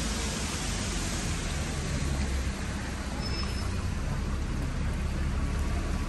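Steady hiss of a rain-soaked town street, with a low rumble of traffic underneath.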